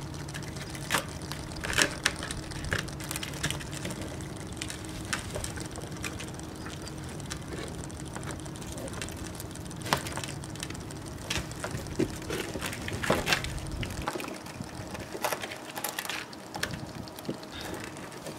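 Hands working a mantis shrimp free from a collapsible crab trap's nylon netting and wire frame: scattered small clicks and rustles of mesh and metal ring. Underneath runs a low steady hum that drops away about three-quarters of the way through.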